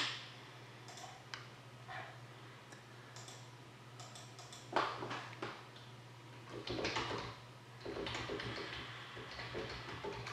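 Faint, scattered clicks and taps of a computer keyboard and mouse, with a few louder brief knocks and a low steady hum underneath.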